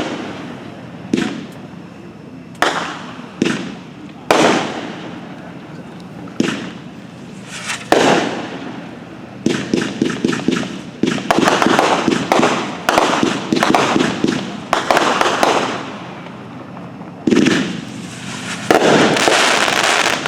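50-shot Pyro World consumer firework cake firing: separate loud bangs every second or two, each fading away, then dense rapid crackling volleys in the second half.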